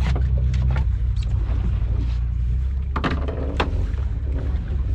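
Boat engine idling with a steady low hum, and a sharp knock on the deck about three seconds in.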